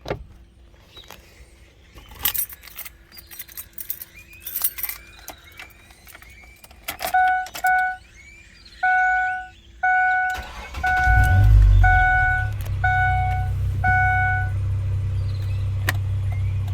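Keys jangling and clicking in a 2004 Ford Explorer's ignition, then the dashboard warning chime beeping about eight times. Partway through the chimes the engine cranks and starts, then settles into a steady idle.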